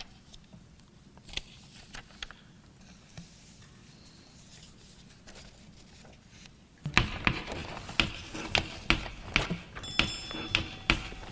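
Quiet room sound with a few faint clicks. About seven seconds in, a run of sharp knocks starts, about three a second, and keeps going.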